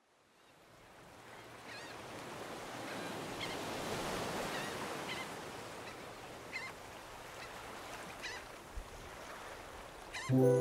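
Surf washing in, fading up from silence and swelling to its loudest about four seconds in, with short bird calls repeating about every one and a half seconds.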